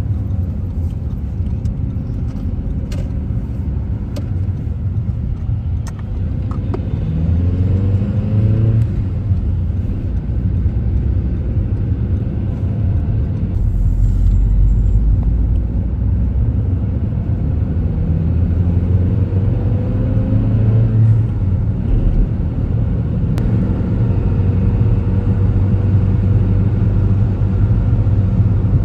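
A car driving, its engine and road rumble steady and low. The engine pitch rises twice as the car accelerates, about a quarter of the way in and again past the middle.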